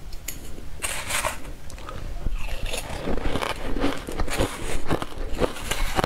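A metal spoon scraping and digging into a steel bowl of crushed ice, the ice crunching and crackling in irregular bursts.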